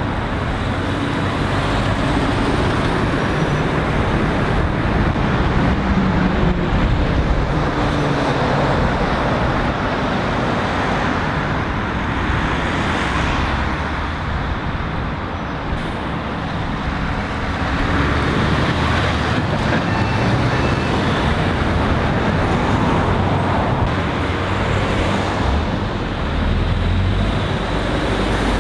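Steady road traffic: heavy lorries and cars driving past, with diesel engine rumble swelling as each lorry goes by over continuous tyre noise.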